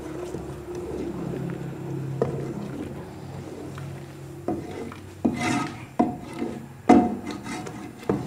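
A wooden spoon stirring and scraping thick lentil-and-spice masala around a metal cooking pot, with sharp knocks of the spoon against the pot in the second half, loudest about seven seconds in. The gravy is kept moving so the masoor dal doesn't catch on the bottom.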